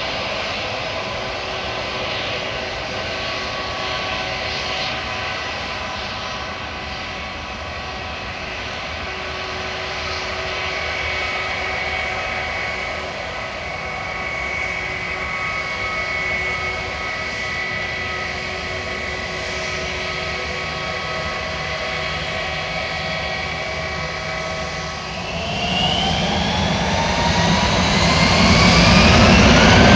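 Airbus A321-231's twin IAE V2500 turbofans whining steadily at low power, several held tones over a low rumble. Near the end they spool up to takeoff thrust: a rising whine and a sharply louder rumble.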